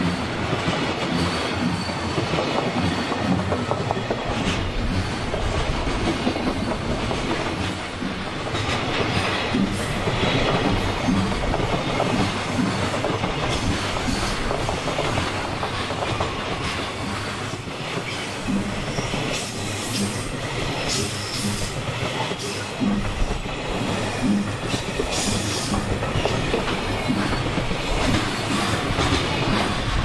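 Freight train's wagons rolling past at speed, wheels clattering over the rail joints in a continuous clickety-clack.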